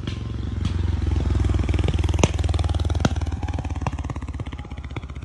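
Small motorcycle engine running with a fast, even putter as the bike passes close by and pulls away, picking up speed. It is loudest about two seconds in and then fades, with a couple of sharp clicks near the middle.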